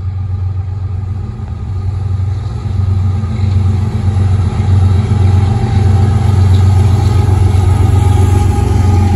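Diesel locomotives of an intermodal freight train running past: a steady, low engine drone that grows louder over the first few seconds as the Norfolk Southern and Union Pacific lead units come alongside.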